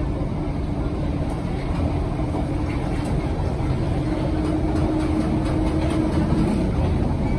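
London Underground 1972 Stock Bakerloo line train running, heard on board: a steady low rumble with a held hum that grows a little stronger in the middle.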